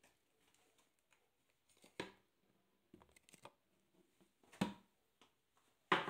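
Arçelik 5083 front-loading washing machine pausing during its soak, drum at rest: low background with a few scattered short clicks and knocks, the loudest about four and a half seconds in and another sharp click right at the end.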